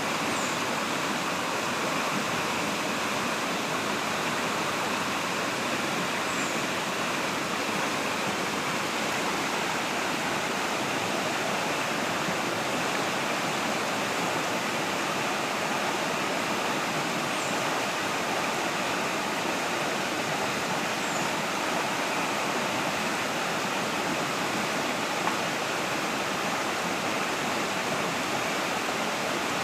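Steady rush of waterfall water tumbling over rocks, an even unbroken hiss, with a few faint high chirps above it.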